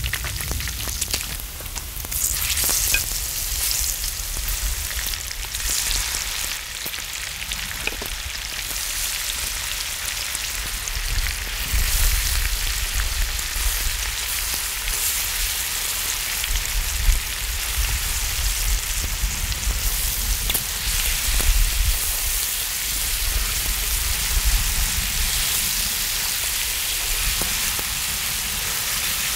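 Pork belly and gochujang-marinated deodeok sizzling steadily in the rendered fat on a cast-iron cauldron-lid griddle, while metal tongs turn and stir the food.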